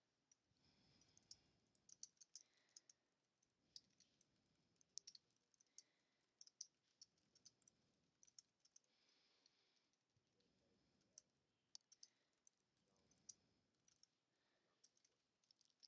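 Faint, irregular clicking of computer keyboard keys being typed on.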